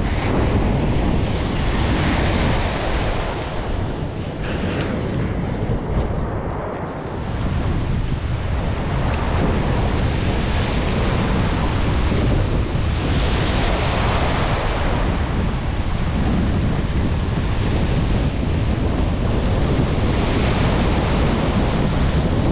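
Ocean surf breaking and washing up a sandy beach, its hiss swelling and easing as each wave comes in, over a steady low rumble of wind buffeting the microphone.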